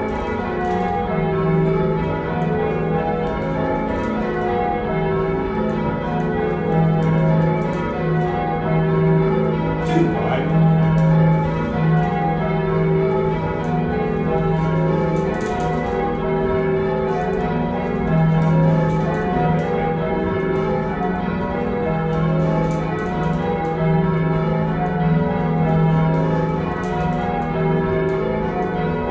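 Heavy ring of six church bells, cast by John Taylor & Co in 1925 with a tenor in E-flat, rung full-circle in continuous change ringing. The strokes follow one another in an unbroken, even stream of overlapping bell tones, heard from the ringing chamber below the bells.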